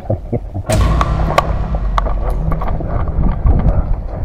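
Sharp pops of airsoft guns firing single shots at irregular intervals, over a low rumble of the camera moving. Just under a second in, a sudden loud hiss fades away over about a second.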